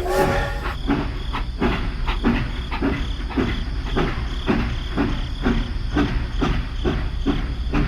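A machine chugging in an even rhythm, about three beats a second, over a steady low rumble.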